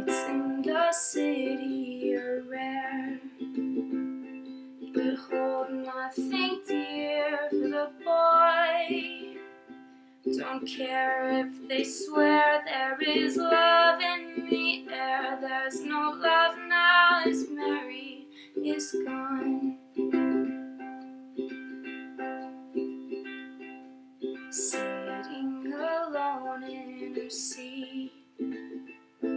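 A ukulele being strummed while a young woman sings over it. Her voice comes in phrases with short pauses between the lines.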